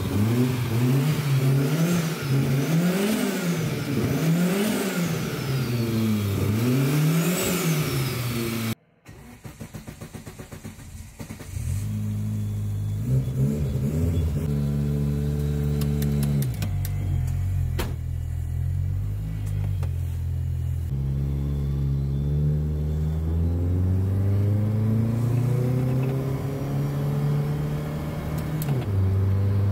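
Toyota Starlet's turbocharged 4E-FTE four-cylinder engine revved up and down about four times in quick succession. After a brief break it runs at lower revs, the engine speed stepping up and down and then rising slowly near the end.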